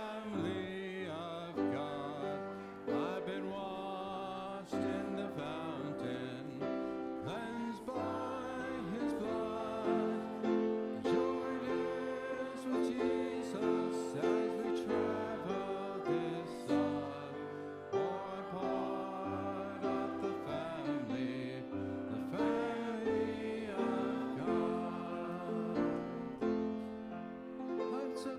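Church music: singing over a keyboard accompaniment, a gospel-style song that runs without a break.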